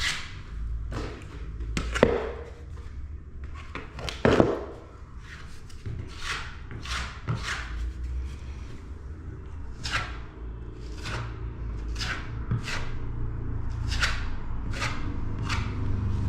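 Filling knife scraping filler in short repeated strokes, about one every three-quarters of a second through the second half, with two louder knocks in the first few seconds and a low steady hum underneath.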